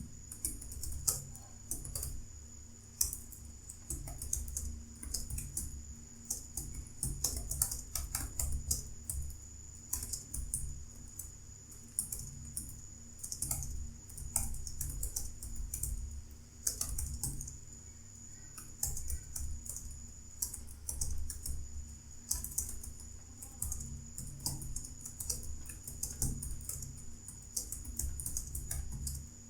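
Fast, continuous typing on a computer keyboard: a dense, irregular stream of key clicks with occasional louder strokes, over a faint steady high whine and low hum.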